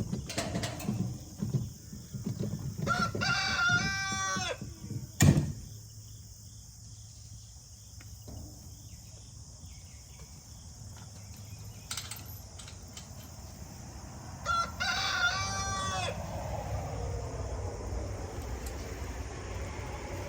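A rooster crows twice, about ten seconds apart, each crow lasting about a second and a half. There are scattered knocks in the first couple of seconds and one sharp, loud knock just after the first crow.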